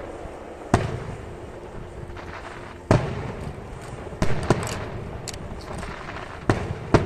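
Aerial firework shells bursting overhead, about five sharp booms a second or two apart, with a steady rumble and crackle between the bursts.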